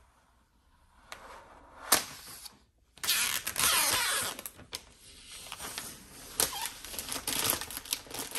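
Protective plastic film being peeled off the back of a new iMac, rustling and crinkling with sharp crackles. It is faint at first and grows louder and busier from about three seconds in.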